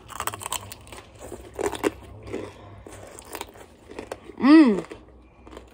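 Crunchy bites and chewing of a tanghulu apple, its hardened sugar-syrup shell cracking in several sharp crunches in the first two seconds, then quieter chewing. About four and a half seconds in comes a short voiced 'mm', rising then falling in pitch.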